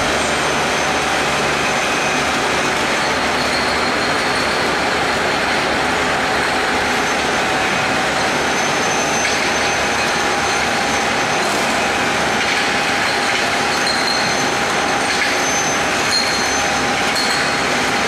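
Rotary glass-bottle washing machine running, a steady, even mechanical noise with no pauses.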